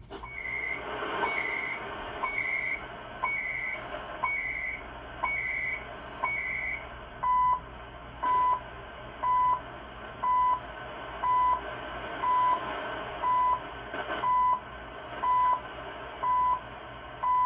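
CHU time-signal station on 3330 kHz, heard on a Kenwood R-5000 receiver fed by an MLA-30 magnetic loop antenna, over a steady hiss of shortwave static. For the first few seconds each second brings a short tick followed by a higher-pitched buzzy data burst, CHU's digital time code; from about seven seconds in these give way to plain 1000 Hz beeps, one each second.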